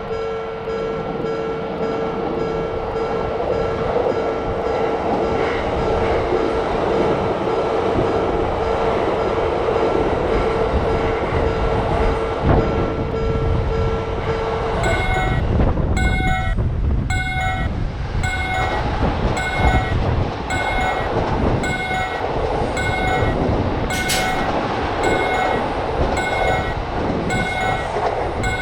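Electric train running past a Japanese railroad crossing, with a steady rumble and, in the first half, a steady tone over it. About halfway the sound changes abruptly and the crossing's warning bell rings in a regular beat, a bit more than once a second, over the train noise.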